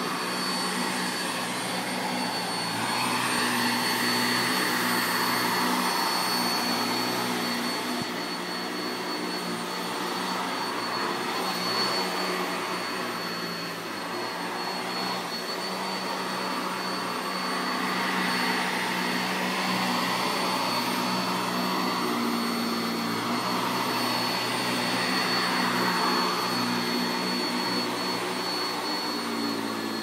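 Vacuum cleaner running steadily: a motor hum with a thin high whine on top, and the rush of air swelling and fading every few seconds.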